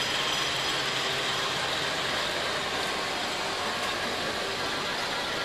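Electric model trains running on a layout's track: a steady mechanical whirring and rattling of small motors and wheels on rail.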